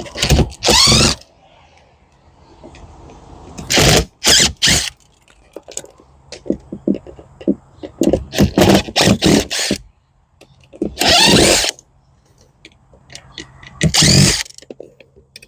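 Cordless power drill/driver backing out Phillips-head screws from an aluminum windshield frame, run in about five short trigger bursts that whir up in pitch, with a stretch of quick stuttering pulses around the middle.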